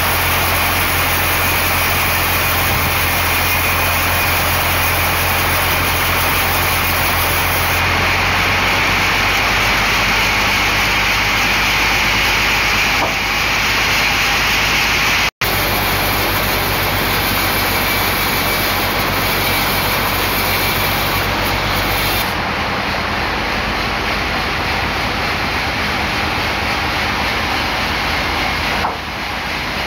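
Large band sawmill running: a steady motor hum under the hiss of the band blade and carriage machinery as the log is worked. The sound breaks off for an instant about halfway, and the low hum falls away about three quarters of the way through.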